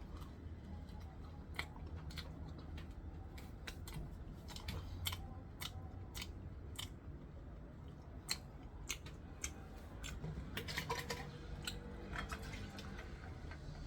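Someone eating at a table: irregular sharp clicks and soft crunching as food is cut and chewed, growing busier about ten seconds in.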